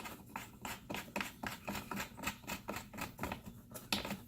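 Rapid, irregular small clicks and light taps, several a second, from small metal leveling-foot screws being handled and set into T-nuts in a wooden module.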